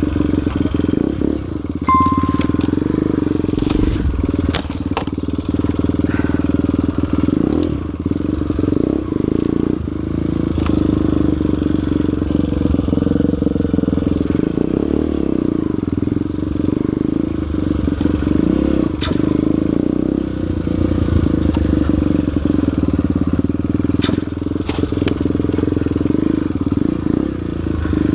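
Single-cylinder four-stroke trail motorcycle engine running at a fairly steady speed while riding a rough dirt trail, with scattered knocks and clatter from the bike over the ground.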